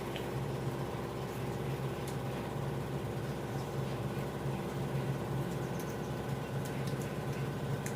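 A steady mechanical hum, with a few faint clicks from eating fish and rice by hand.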